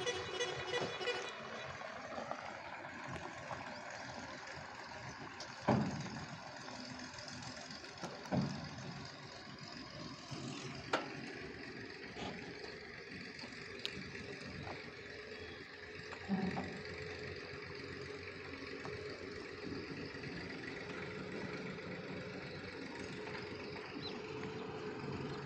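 Distant diesel engines of a tipper truck and tractors working in a stone quarry, a steady hum. Four sharp knocks come through, at about six, eight, eleven and sixteen seconds in.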